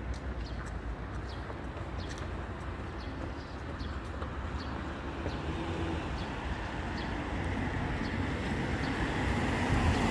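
Road traffic: a steady rumble of vehicle noise that grows louder near the end as a vehicle approaches.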